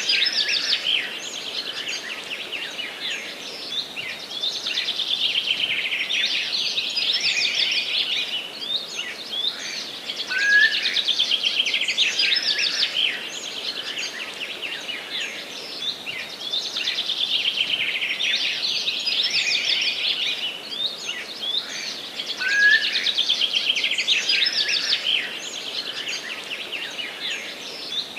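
Forest songbirds singing in a dense chorus of fast, high chirping trills, swelling louder about every twelve seconds.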